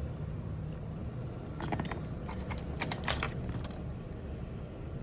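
A short run of light metallic clinks and jingles, like small metal objects being handled, lasting about two seconds in the middle, over a steady low rumble.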